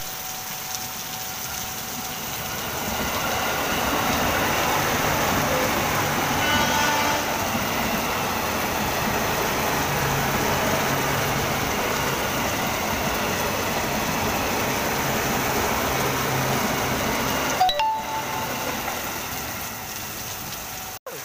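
Heavy rain falling steadily, mixed with a KRL commuter electric train running past on the nearby track, its noise swelling a few seconds in and easing near the end.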